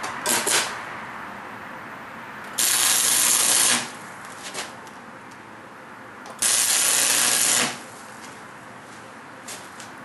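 Two short tack welds joining steel plate, each a burst of electric-arc welding crackle and hiss about a second long, one a few seconds in and one past the middle, with a couple of clicks near the start.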